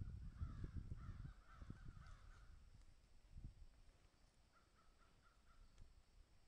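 Faint bird calling: a rough, drawn-out call in the first two seconds, then a quick run of about five short repeated notes near the end. Low thumps come and go beneath it, loudest early on.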